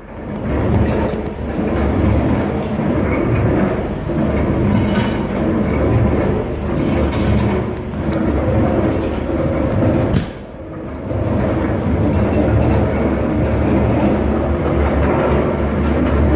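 Homemade mortar mixer running empty: the blue plastic-barrel drum turning on its steel frame with a steady rumbling and rattling, briefly quieter about ten seconds in.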